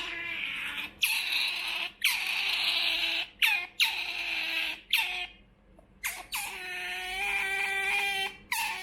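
Pet otter begging for food with a string of high, squeaky calls, each about half a second to a second long with short gaps between, and one longer, steadier call lasting almost two seconds near the end.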